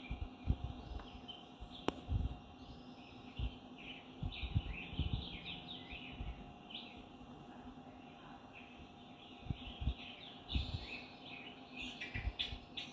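Small birds chirping in quick, repeated short calls, with scattered low thumps and a faint steady hum.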